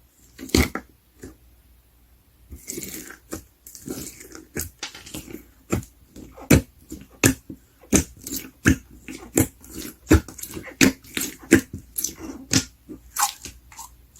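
Slime being squeezed and pressed, giving a sharp pop near the start and then a steady run of crackly pops and squelches, about one or two a second.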